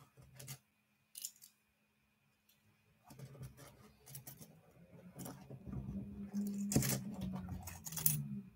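Rustling and scattered clicks of handling close to the microphone, sparse at first and denser from about three seconds in, over a low steady hum.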